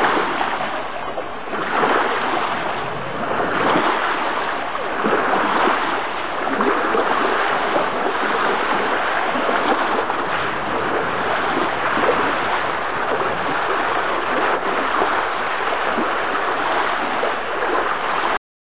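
Rushing noise of river water and wind, rising and falling in uneven surges, with no clear engine note; it cuts off suddenly near the end.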